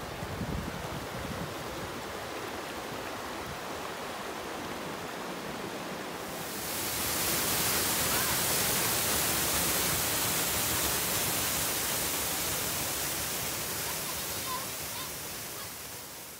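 A shallow mountain river running over rocks, a steady rushing. About six seconds in, it gives way to the louder, brighter roar of a waterfall pouring into its plunge pool.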